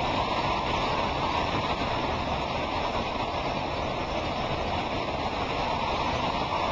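Hurricane-force wind and driving rain: a steady rushing noise.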